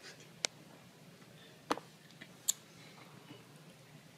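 A toddler's wet lip smacks and mouth clicks while sucking on a lime slice: three short, sharp clicks spread over a few seconds against a quiet room.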